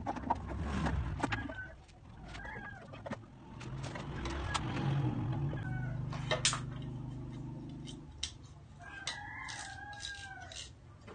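Chickens clucking, with a longer rooster crow near the end. Light clicks and knocks from a wooden hive frame being handled, and a low steady hum from about four to eight seconds in.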